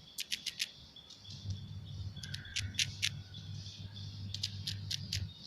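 A squirrel gnawing a biscuit with its sharp teeth: quick clusters of crisp crunching clicks, a fast run of them near the start and more bunches through the middle and toward the end. A low steady hum sits underneath.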